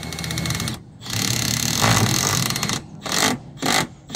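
Cordless driver driving screws into the timber roof deck in separate runs: a short one, a longer one of nearly two seconds, then two quick bursts near the end.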